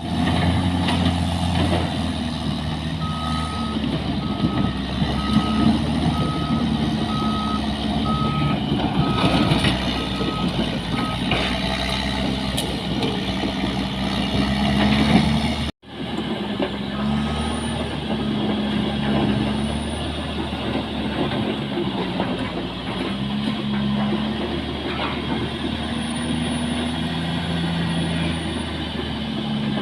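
Caterpillar bulldozer's diesel engine working, its pitch rising and falling with the load, while its reversing alarm beeps in a steady pulse from about three seconds in to about eleven. The sound cuts out for a moment about halfway through.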